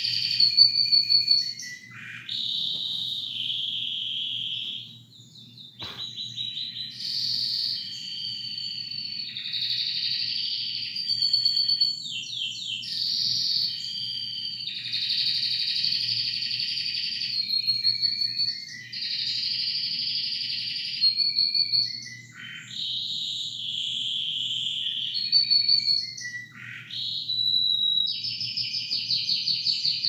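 Domestic canary singing a long, continuous song of fast rolling trills and held whistled notes, changing phrase every second or two, with a short pause about five seconds in. A faint low hum runs underneath.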